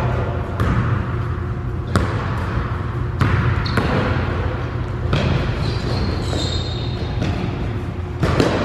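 A basketball bouncing now and then on a hardwood gym floor, with sneakers squeaking on the court a few times around the middle, over a steady low hum.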